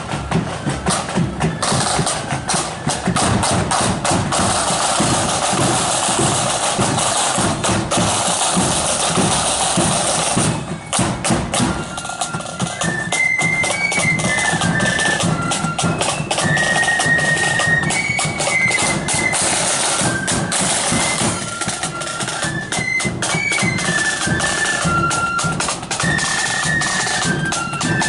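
Marching flute band: snare and bass drums beat on their own, then the flutes come in with a high tune about twelve seconds in, the drums carrying on under them.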